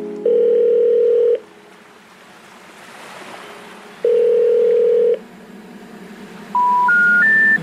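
Electronic beep tones: two long, steady, mid-pitched beeps about three seconds apart, then three short beeps stepping up in pitch near the end.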